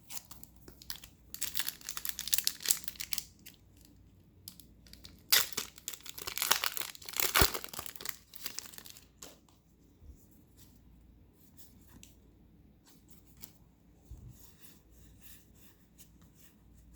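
Pokémon booster pack's foil wrapper being torn open and crinkled, in two bouts of tearing and rustling in the first half, then only faint handling.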